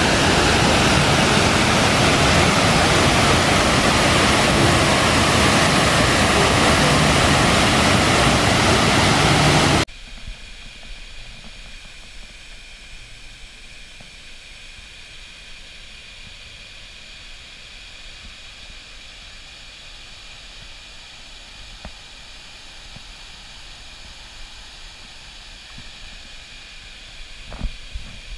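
Loud steady rush of water cascading down the sides of a man-made volcano. About ten seconds in it cuts off suddenly to a faint steady hiss, with a few light knocks near the end.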